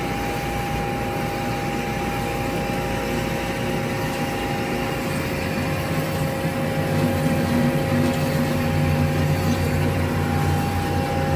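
Hyd-Mech H-16A horizontal band saw running through a cut in its automatic cycle: a steady machine whine with two held tones over a mechanical hum. About halfway through, the lower hum grows louder.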